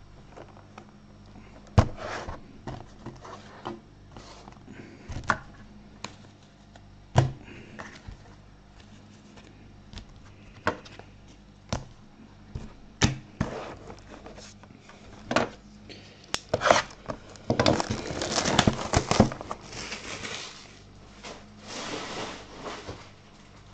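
A sealed trading-card box being handled and opened: scattered sharp taps and knocks of cardboard on a table, then, about two-thirds of the way through, several seconds of crinkling and tearing of the box's wrapping.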